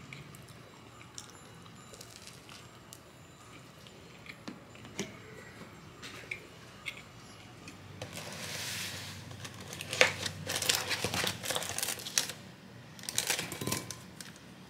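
Packaging rustling and crinkling, with sharp clicks and light knocks, as Weet-Bix wheat biscuits are taken out and put into a glass bowl. The sounds come in two clusters during the last five seconds. Before that there are only faint scattered clicks.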